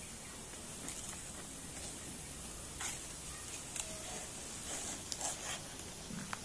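Rustling and a few short crackles of a large banana leaf being pulled down and cut off the plant, over a steady outdoor hiss.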